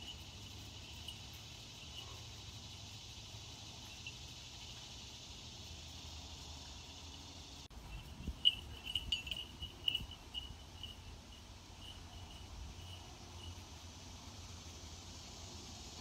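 Outdoor background with a steady high hiss and, about eight seconds in, a run of short, high, evenly repeated chirps at one pitch that fade out over some five seconds, mixed with a few sharp clicks.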